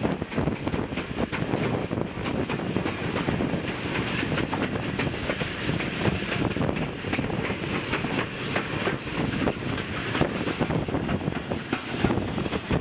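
Steam-hauled train running along the line, heard from an open carriage window: a steady rumble of wheels on the track, with wind buffeting the microphone.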